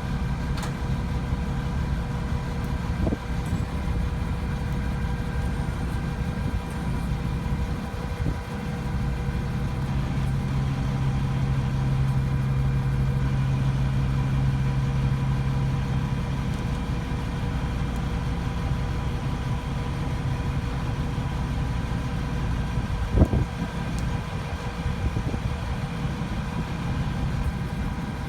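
An engine running steadily, its low drone growing stronger for several seconds in the middle, with a single knock about 23 seconds in.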